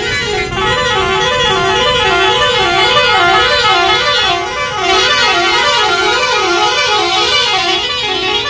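Musical vehicle horn sounding without a break, its pitch dipping and rising in a regular warble a little over twice a second, over the low rumble of passing lorry traffic.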